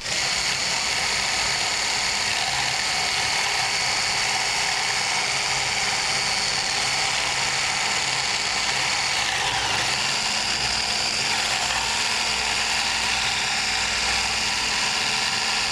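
Corded electric hand whisk (stick blender with a whisk attachment) switched on with a click and running steadily with a whirring whine, whisking raw egg white in a plastic bowl as it begins to turn frothy for meringue.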